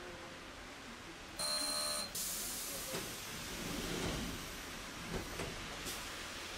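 A tram's electric buzzer sounds for under a second, then a long hiss of released compressed air follows, with a few faint knocks.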